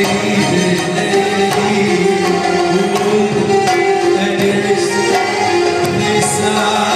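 Live Middle Eastern music: a male singer over a band of hand drums and frame drums, with steady sharp drum strokes under the melody.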